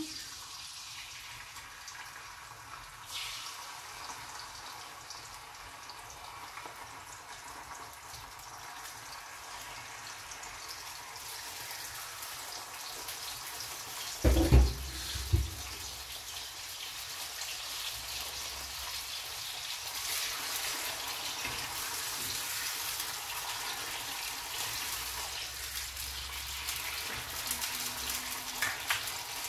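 Raw chicken pieces sizzling in hot oil in a karahi, a steady frying hiss that slowly grows louder. A few loud knocks about halfway through.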